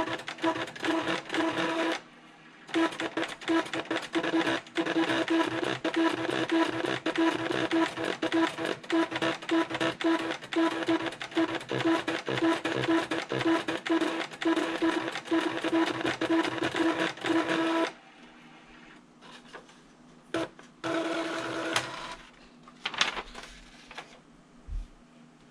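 Panasonic Penwriter's pen-plotter mechanism writing out text: a rapid run of clicks over a steady whir from the carriage and motors, pausing briefly about two seconds in. It stops about eighteen seconds in, and paper rustles as the printed sheet is lifted out, with a soft thump near the end.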